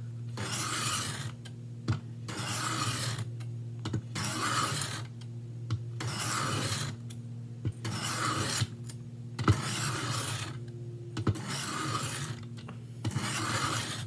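Steel knife blade scraped in long strokes across a Work Sharp benchstone's diamond plate, about one stroke every two seconds, with a light click between strokes as the blade is set back on the angle guide. The blade is being ground to raise a burr.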